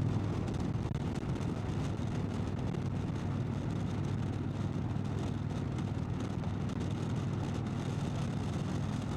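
Indian Chieftain's Thunder Stroke V-twin running steadily at cruising speed through a Freedom Performance exhaust, under a steady hiss of wind and road noise.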